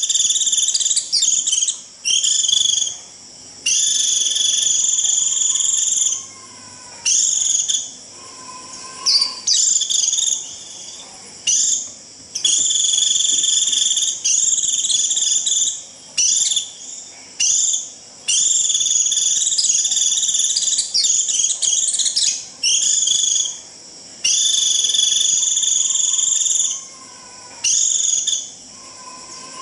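White-eye giving its shrill, buzzy 'rít' call over and over in bursts of up to a couple of seconds with short gaps: the flock-calling call used to lure white-eyes in.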